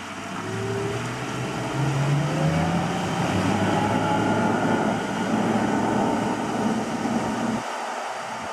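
An engine speeding up, its pitch rising over the first few seconds, then running steadily under a loud rushing noise. The low rumble drops away near the end.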